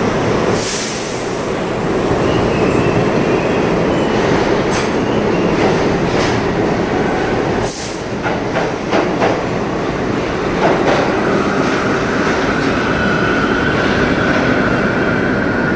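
R32 subway train pulling out and rolling past close by: a steady rumble of wheels and motors with a few sharp knocks as the wheels cross rail joints, and a high steady whine from about eleven seconds in.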